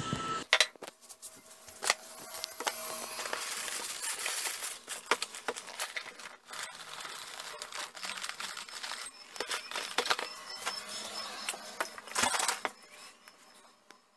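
Dry cereal flakes poured from a cardboard box into a ceramic bowl: a long rattling patter with many small clicks and knocks as the bowl and box are handled. A louder rustle near the end.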